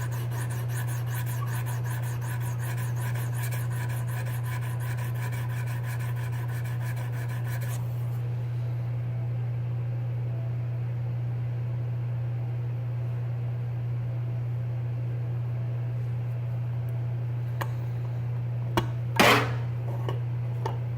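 Sharpening stone on a KME guided knife sharpener rubbing along a steel knife edge in quick repeated strokes, with a faint ringing from the blade, stopping about eight seconds in. A steady low hum runs underneath, and a short clatter comes near the end.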